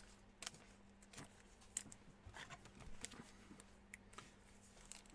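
Near silence with faint, scattered clicks and light rustles of trading cards being handled and flicked through.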